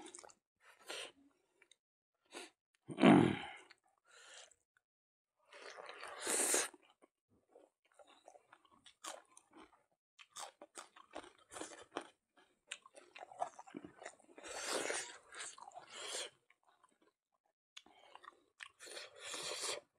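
Close-up chewing and crunching of a man eating smoked pork with rice and raw spring onion by hand, in short bursts with quiet gaps between mouthfuls. A single loud thump comes about three seconds in.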